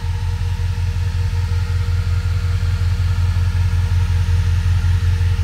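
Chevrolet K5 Blazer's LS-swapped LQ9 V8 idling steadily, run to charge a deep-cycle battery off the alternator.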